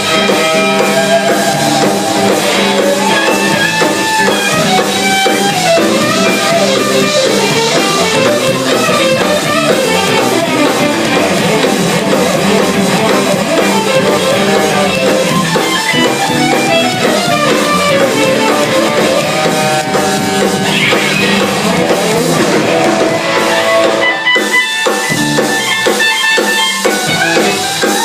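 A band jamming: guitar playing melodic lines over a drum kit.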